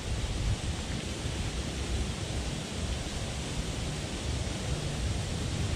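Steady outdoor wind noise: an even hiss with a light low rumble of wind on the microphone.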